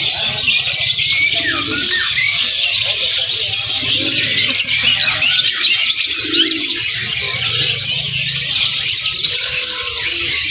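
Dense chorus of many caged songbirds chirping and twittering at once, a continuous tangle of short high calls.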